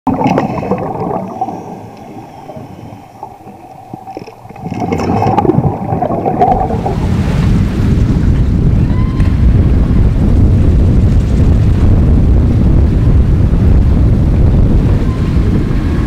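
Underwater ambience with steady humming tones, then, about five seconds in, loud wind buffeting the microphone over the rush of waves breaking around a sailboat in rough seas.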